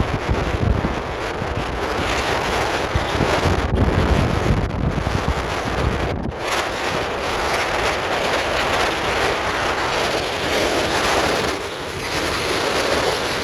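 Blizzard wind blowing hard in gusts and buffeting the microphone, a continuous rushing noise with a low rumble that swells and eases.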